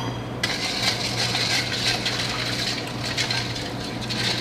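Warm water with yeast being stirred by hand in a stainless steel bowl: continuous wet swishing and splashing that starts about half a second in, just after a short metallic clink. A low steady hum runs underneath.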